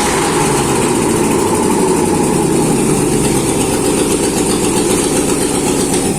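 Freshly overhauled ZMZ-511 V8 petrol engine running steadily at idle after its first start following a rebuild.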